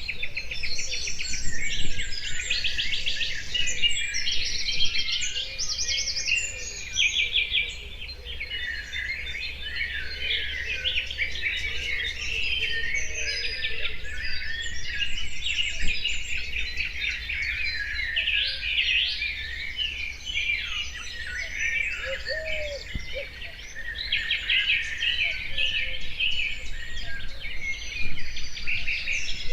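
Chorus of many songbirds singing at once, overlapping warbles, chirps and rapid trills.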